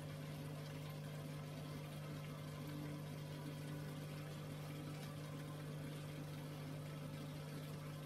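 Aquarium pump running with a steady hum over a light, even wash of moving water.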